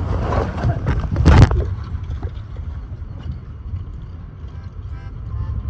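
Strong wind buffeting the microphone: a low rumble throughout, with a loud gust about a second and a half in. Background music comes in near the end.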